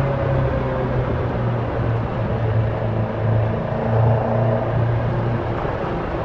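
Caterham Super Seven 1600's engine and exhaust running at steady revs, a low hum that swells and eases slightly, over a haze of road and wind noise.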